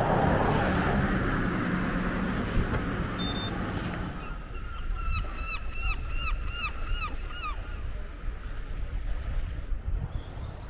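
A low engine rumble fades away over the first four seconds, then a bird calls a quick run of about ten short, falling notes.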